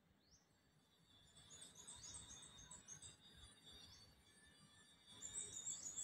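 Faint high-pitched bird chirps: single rising notes every second or two, with quick runs of short twittering notes about two seconds in and again near the end, over a low distant city hum.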